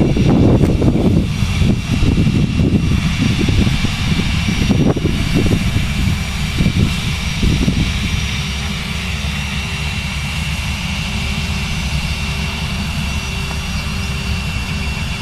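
The Cessna Citation CJ2+'s twin Williams FJ44 turbofans idling, a steady high whine over a low rumble. The rumble is gusty for the first several seconds, then settles.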